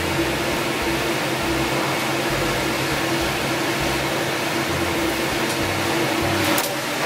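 Steady drone of kitchen ventilation or fan noise with a constant low hum, with a brief hiss about six and a half seconds in.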